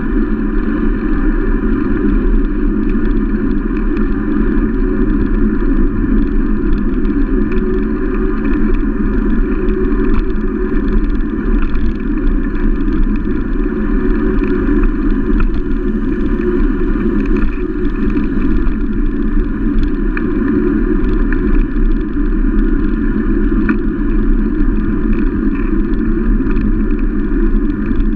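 Steady wind rush and tyre-on-asphalt noise picked up by a camera mounted on the handlebars of a moving bicycle. The noise is loud and even throughout, with no breaks.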